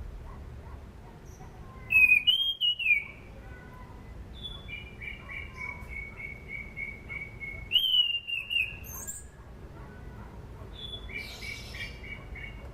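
Anis cendana thrush singing: loud whistled phrases about two seconds in and again near eight seconds, with runs of quick short repeated notes, about three a second, between them and near the end.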